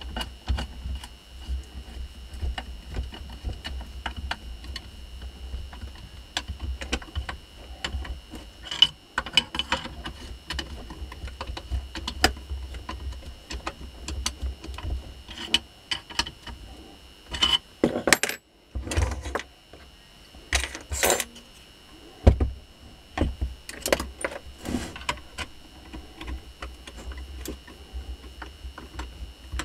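Steel hand tools, a screwdriver and a thin pick, clicking, tapping and scraping against the metal housing of a washing-machine motor during reassembly. The taps and clinks are irregular, with a few louder knocks, the sharpest about 22 seconds in.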